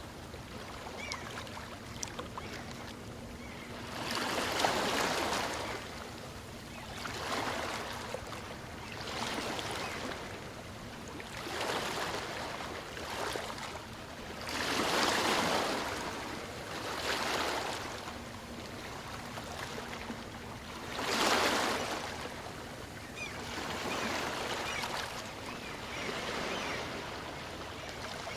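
Small waves on a calm sea breaking and washing in, each surge of hiss swelling and fading every few seconds, with the biggest surges about 4, 15 and 21 seconds in.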